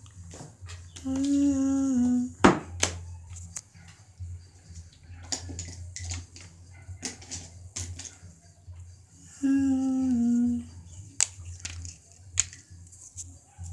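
Sharp clicks and taps of a marker and its plastic cap on paper, with one louder click a couple of seconds in. Twice, about a second in and again near ten seconds, a short tone steps down in pitch over about a second. A low electrical hum runs underneath.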